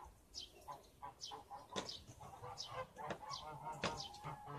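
Farmyard poultry calling: low honking calls under a run of short, high, falling chirps, about two a second.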